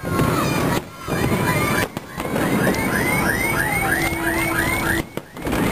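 Fireworks bursting and crackling in a dense, continuous din. From about a second in, a rapid run of high, curving chirps repeats about four times a second. The sound briefly drops out three times.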